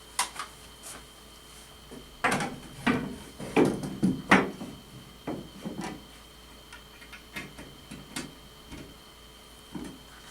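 A series of irregular knocks and clicks from hardware and tools being handled, louder and closer together in the first half and fainter later, over a faint steady high whine.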